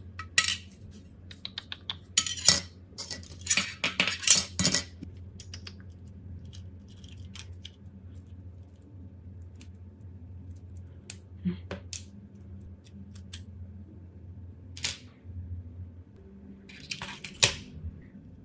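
Small metal tools and phone parts clicking and clinking against a hard work surface: a busy run of taps in the first five seconds, then a few scattered clicks, over a low steady hum.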